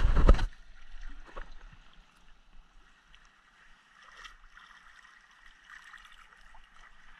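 A loud rush of noise that cuts off abruptly half a second in, then faint water sloshing and lapping around a person wading chest-deep in a river, with small splashes.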